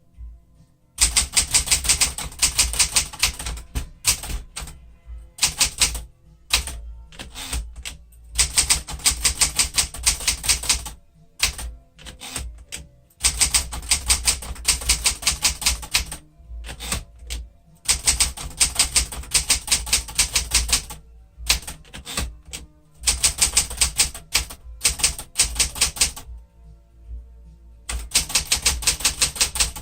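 1972 Smith-Corona Classic 10 manual typewriter being typed on: bursts of rapid key strikes, many a second, broken by short pauses.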